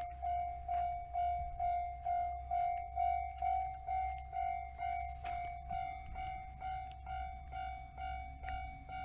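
Japanese railway level-crossing warning bell ringing its repeated clang, a little over two strikes a second at an even pace, the signal that a train is approaching and the barrier is down.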